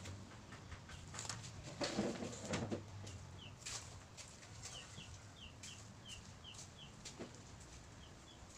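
A chicken clucking about two seconds in, then a small bird giving a run of short, high chirps, two or three a second. Faint scratches of a highlighter marker on paper come through between the calls.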